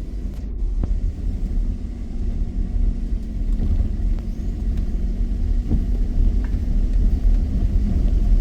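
Car driving slowly: a steady low rumble of engine and road noise with a faint constant hum and a few light knocks.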